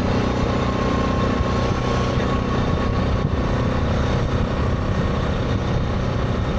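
Yamaha Grizzly 660 ATV's single-cylinder engine running at a steady cruising speed, with wind rushing past the microphone.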